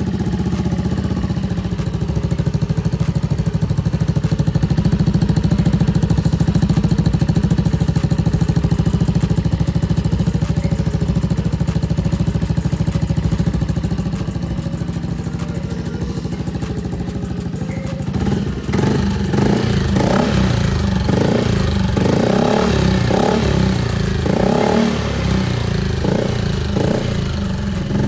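Yamaha All New NMAX's single-cylinder 155 cc engine running through an aftermarket R9 Alpha exhaust: a steady idle, then from about two-thirds of the way in a run of short throttle blips in quick succession.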